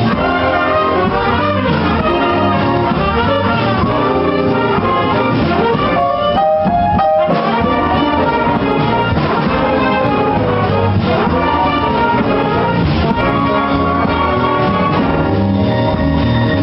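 Jazz big band playing, with a brass section over piano and electric guitar. About six seconds in, the band drops away for about a second, leaving a couple of held notes, then comes back in.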